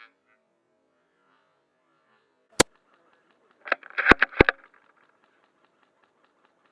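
A Classic Army M24 LTR spring-powered airsoft sniper rifle fires once with a single sharp crack about two and a half seconds in. About a second later comes a quick run of clicks and a metallic rattle as the bolt is worked back and forward to cock and chamber the next BB.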